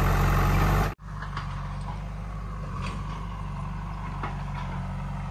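Diesel engine of a JCB 3DX backhoe loader (Kirloskar engine) running loudly under digging work, cut off abruptly by an edit about a second in. After the cut the engine is heard more quietly, running steadily, with a few faint clicks.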